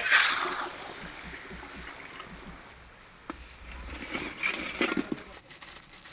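Hot oil sizzling and bubbling around samosas deep-frying in an iron kadai. The sizzle starts abruptly and loud, then eases to a lower, rougher sizzle, with a single knock a little past three seconds in.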